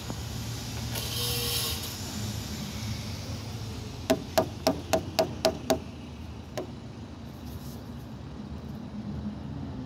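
A quick run of seven sharp knocks on a hard tiled surface, about four a second, each with a short ring, then one more single knock about a second later, over a steady background hiss.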